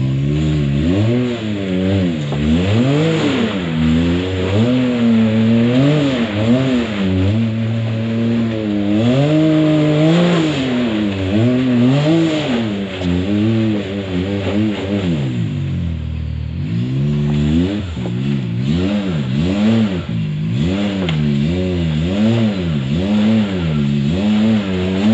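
Side-by-side UTV engine revved up and down again and again as it works its way through a rock-crawling obstacle. It settles briefly to a lower, steady note a little past the middle, then the revving resumes.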